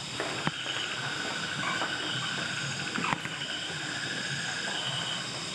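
Night-time insect chorus: steady, pulsing high trills in several pitches, with a few short clicks, about half a second in and again after three seconds.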